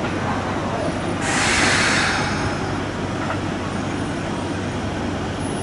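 Kintetsu limited express train running away along the track, its wheels and rails giving a steady noise. A brief rushing hiss swells about a second in and fades.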